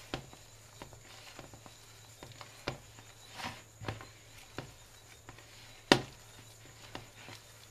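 Hand mixing mashed potato with bread crumbs and spices in a plastic bowl: scattered light knocks and soft scrapes, the loudest knock about six seconds in, over a faint steady hum.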